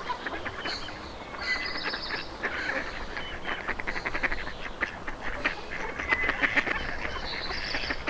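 Farmyard poultry calling and chattering: a busy run of short, quick calls, busiest about a second and a half in and again near the end.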